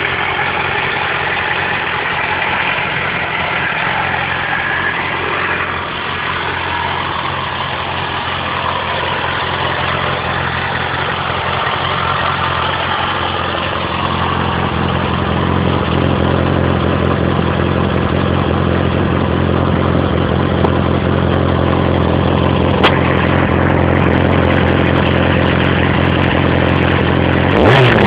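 Yamaha Fazer 600 motorcycle's inline-four engine idling steadily through its stock exhaust, its low tone growing somewhat louder about halfway through.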